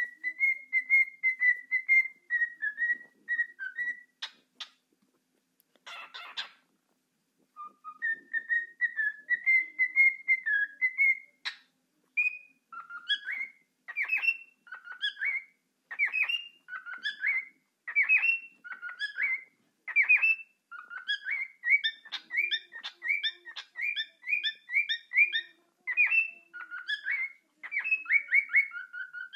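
Cockatiel singing: a warbling whistled phrase, a short pause, the same phrase again, then a fast run of short rising and falling whistled chirps for the second half.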